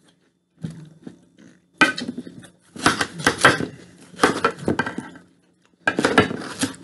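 Large kitchen knife cutting through watermelon and knocking and scraping against a baking tray, in four short bursts of clatter.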